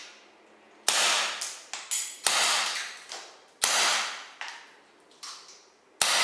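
HFC HG-196 Mauser C96 full-metal gas blowback airsoft pistol firing four sharp shots, the bolt cycling with each one. The first three come about a second and a half apart and the last follows a longer pause.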